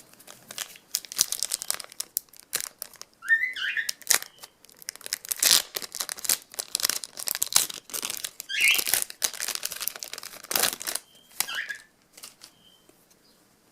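A trading-card pack wrapper crinkling and being torn open by hand, a dense run of irregular crackles with a few short squeaks.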